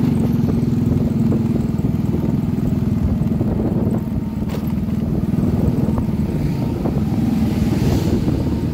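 Motorcycle engine running steadily under way, heard from the rider's own bike.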